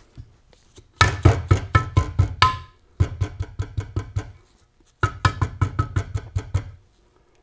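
Rubber mallet tapping a billet mid plate down into an aluminium Muncie 4-speed transmission case: three runs of quick taps, several a second, with a faint metallic ring. It is seating the tight-fitting plate into the case.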